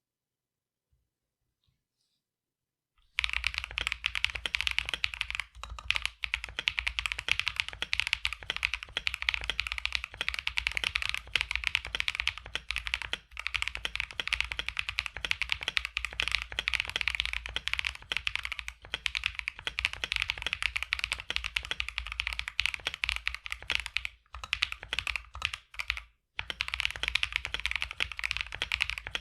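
Typing sound test on a mechanical keyboard fitted with factory hand-lubed Akko CS Lavender Purple switches: a fast, dense run of keystrokes with a deep tone, starting about three seconds in after near silence, with a couple of brief pauses near the end.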